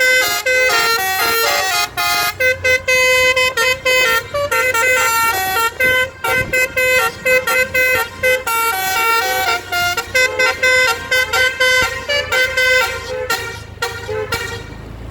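Bus basuri 'telolet' multi-tone horn playing a quick tune, its notes changing pitch several times a second, until it stops about a second and a half before the end. A low engine rumble sits underneath.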